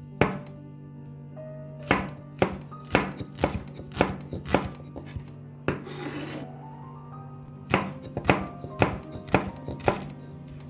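Knife chopping vegetables on a cutting board, sharp strikes at about two a second, with a short scraping sound in a pause around the middle.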